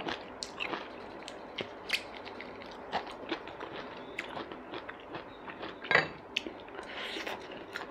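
Close-up mouth sounds of a person chewing food with lips closed: a run of small wet clicks and smacks, with one louder click about six seconds in.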